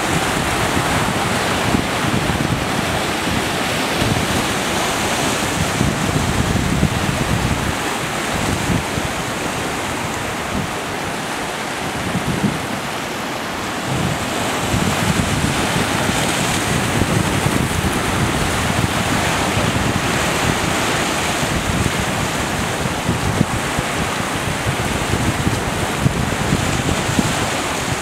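Ocean surf breaking, with foaming whitewater washing up the shore, and wind buffeting the microphone.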